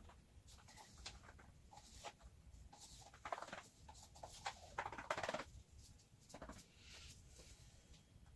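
Faint handling sounds of paint being mixed in small cups: light taps, clicks and short scrapes, with louder scraping about three seconds in and again about five seconds in.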